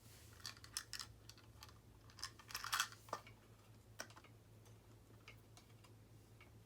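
Small scattered clicks and rattles of hands working electrical wires and connectors into a switch box, with a quick cluster of clicks about two and a half seconds in and two sharp single clicks soon after, over a faint steady low hum.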